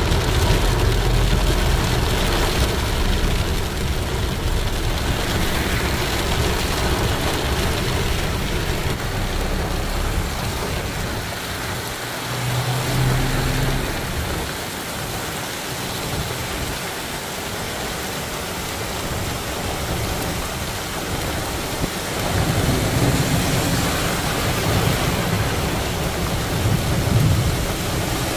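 Steady hiss of rain falling, with a low rumble that swells briefly near the middle and again for several seconds near the end.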